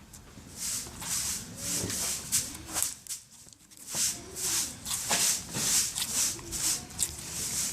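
Glitter slime squished and kneaded by hand, making a run of short squishing sounds about two a second, with a brief pause near the middle.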